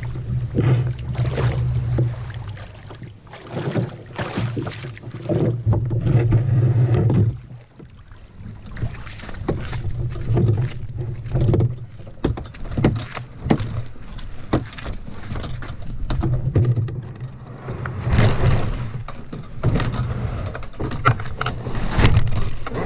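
Sit-on-top plastic fishing kayak out on the water: irregular splashes and knocks against the hull, with stretches of low rumble in between.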